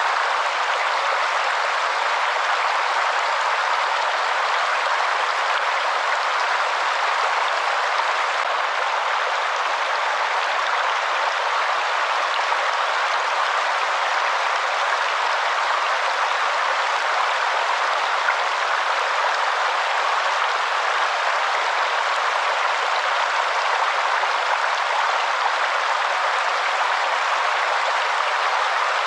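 Waterfall: a steady, unchanging rush of falling water, even in level, with no deep rumble underneath.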